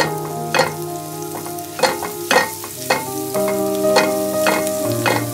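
Minced garlic sizzling gently in oil in a nonstick frying pan, being lightly fried rather than browned, while a silicone spatula stirs and scrapes across the pan in about two strokes a second.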